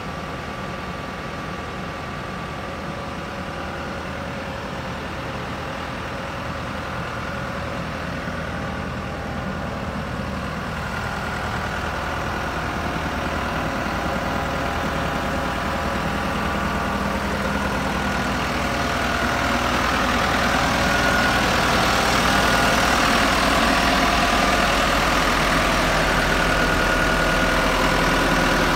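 SkyTrak telehandler's diesel engine idling steadily, growing gradually louder as the engine compartment gets closer.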